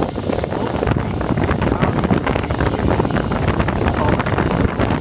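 Strong wind buffeting on a phone microphone held right in the airflow of a large Delta axial cooling fan: a dense, rough rushing rumble with constant irregular pops.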